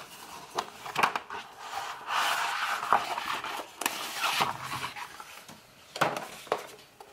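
Paper dust jacket rustling and sliding as it is pulled off a cloth-over-board hardcover book, with a few light knocks of handling.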